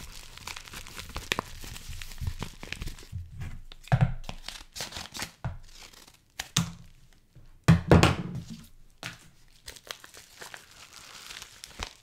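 Yellow plastic mailer being torn open and its inner packaging crinkled and rustled. Sharp ripping bursts come about four seconds in and, loudest, around eight seconds in.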